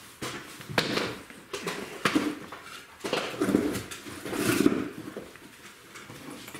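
Hand tools being picked up and handled on a workbench: a string of irregular clicks, knocks and rustling clatter, busiest about three to four and a half seconds in.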